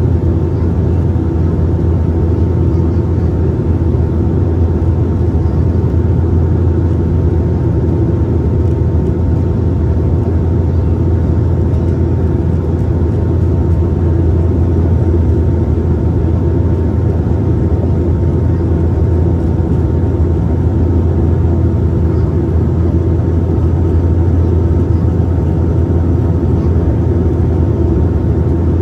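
Cabin noise inside a Dash 8-400 turboprop airliner on final approach: the steady drone of its Pratt & Whitney PW150A engines and six-blade propellers. It is a strong low hum with a couple of steady higher tones above it.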